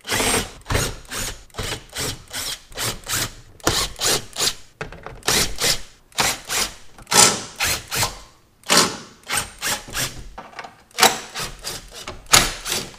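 Makita cordless impact driver hammering out the screws of a car's plastic underbody tray, in a string of short bursts with brief pauses between screws.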